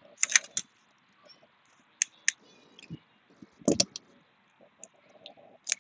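Boiled crawfish claw shells being cracked and bitten open, a few sharp separate cracks and clicks, the loudest a little past the middle as a claw is bitten between the teeth.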